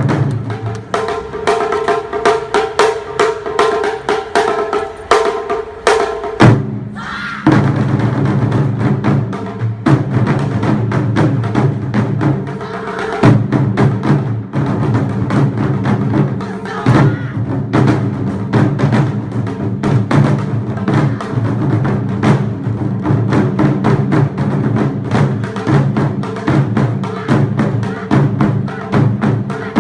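Lively performance music driven by drums and sharp wooden clacks, with sustained pitched parts over a rapid beat. The low drums drop out for a few seconds near the start, then crash back in and carry on steadily.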